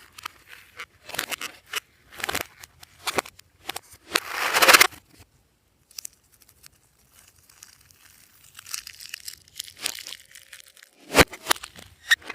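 Glossy slime being squished and pressed by hand, giving irregular sticky crackles and pops, with a longer, louder squelch about four seconds in and a run of sharp clicks near the end.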